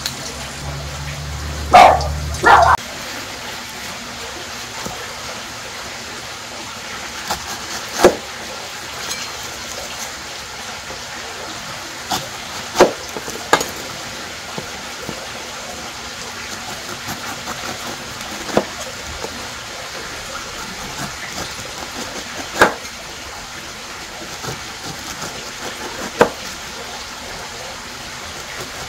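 Water running steadily, as from a tap while ingredients are washed, with sharp knocks every few seconds; the loudest are a pair about two seconds in.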